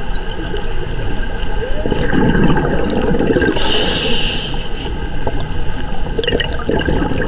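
Bottlenose dolphins whistling underwater: repeated high whistles that each sweep down and back up. A diver's scuba regulator sends out a rush of exhaled bubbles about two seconds in.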